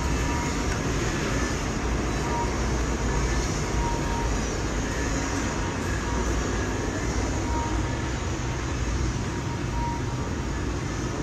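Steady rushing roar of running workshop machinery, constant in level and heavy in the low end, with a faint high tone coming and going.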